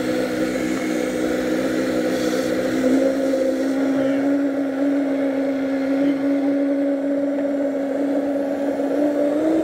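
Countertop blender motor running steadily under the load of a thick protein shake, a loud even hum whose pitch nudges up slightly about three seconds in.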